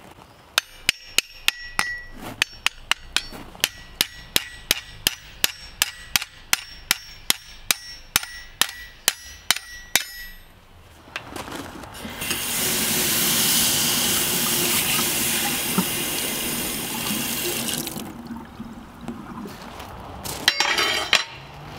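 Hand hammer striking red-hot lawnmower-blade steel on an anvil to straighten it: about three ringing blows a second for roughly ten seconds. Then a loud steady hiss for about six seconds, and a few metal clinks near the end.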